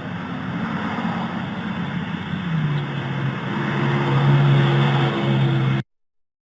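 Car engine running, then accelerating about two and a half seconds in, its pitch rising and the sound growing louder, heard through a doorbell camera's microphone. The sound cuts off suddenly near the end.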